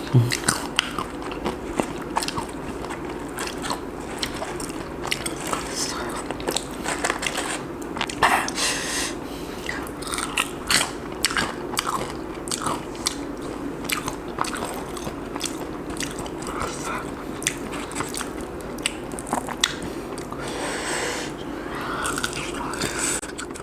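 Close-miked eating of crispy fried chicken: repeated crisp biting and crunching with chewing and mouth smacks, over a steady low hum in the room.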